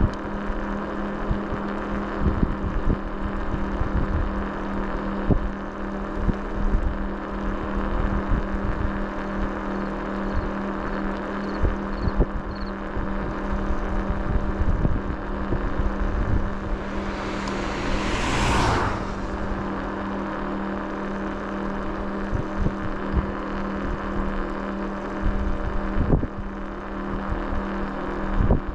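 A vehicle's engine running at a steady pitch, heard from on board, with frequent low thumps and buffeting. About two-thirds of the way through, a loud whoosh rises and falls, and a few faint high beeps sound near the middle.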